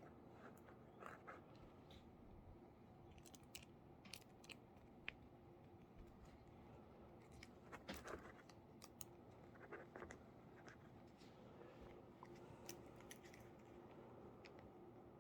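Quiet handling noise: scattered faint clicks and scrapes of a metal sling swivel being worked onto a shotgun's front sling mount, over a low steady hum.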